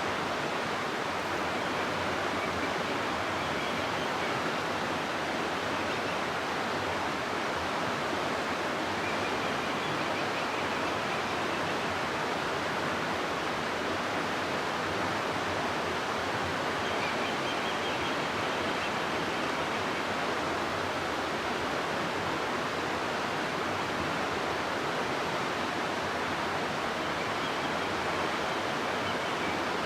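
River water rushing through a gorge, a steady, unbroken wash of water noise.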